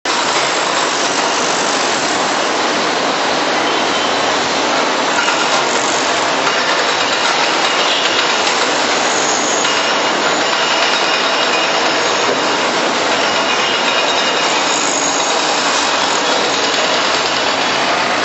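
Hydraulic excavator running steadily as it digs and loads soil, heard as an even, hiss-like machine noise that never lets up.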